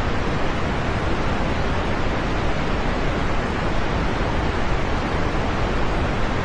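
Steady heavy rain falling, an even unbroken hiss with no single drops standing out.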